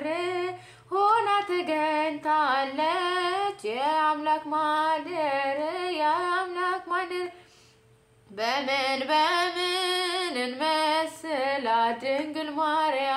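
A woman singing an Amharic Ethiopian Orthodox hymn (mezmur) solo, with no instruments, in long held phrases. She breaks off for a breath about halfway through, and it falls almost silent before she sings on.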